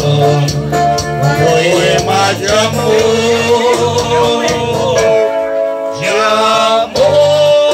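Electronic keyboard played live in a bolero: a sustained melody voice over a repeating bass line and a steady programmed rhythm. The bass drops out for a moment past the middle, then comes back.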